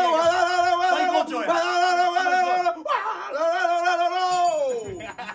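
Male voice singing three long, held notes with a slight waver, the last one sliding down in pitch near the end.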